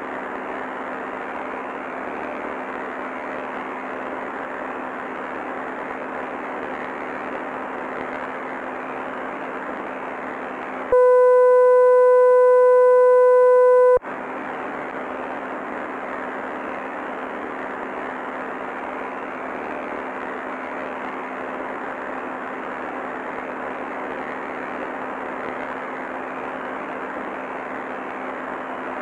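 Steady static hiss with a faint low hum, as from a damaged broadcast recording. About eleven seconds in it gives way to a loud, steady electronic tone held for about three seconds, which cuts off sharply before the static returns.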